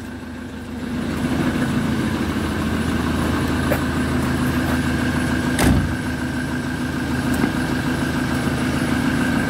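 Ford Transit 140's 2.4-litre TDCi diesel engine idling steadily, getting louder about a second in. A single thump comes a little past halfway.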